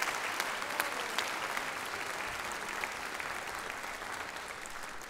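Audience applauding, with many hands clapping; the applause slowly dies down.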